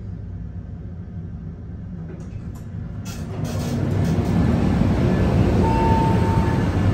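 A low hum, then a few clicks as the elevator's glass doors slide open about three seconds in. A train's rumble on the platform track then swells and stays loud, with a brief steady tone near the end.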